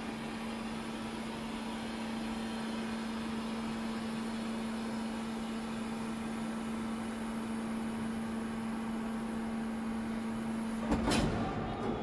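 Steady hum of a hydraulic ground cart supplying 3000 PSI at very low flow while an Airbus A320's nose landing gear extends slowly to bleed the new actuator. A brief loud knock comes near the end.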